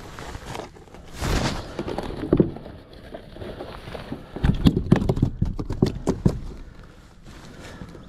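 Knocks and bumps against a plastic sit-on-top kayak, with rustling of a rain jacket, as a kayak angler handles gear to get out a fish-tagging kit; the knocks come in a quick cluster around the middle.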